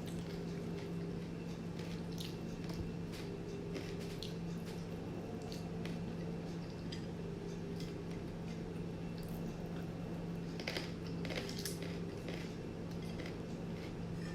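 Close-up eating sounds of a meal of kidney beans, rice and greens: wet chewing and mouth noises with occasional light clicks, over a steady low hum.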